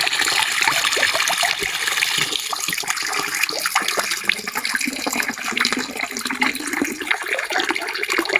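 Water running steadily, a continuous rush with small splashes and trickling.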